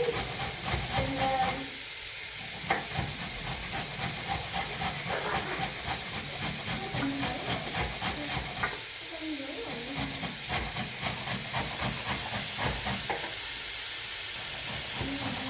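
Steady hissing with many small crackles and clicks through it.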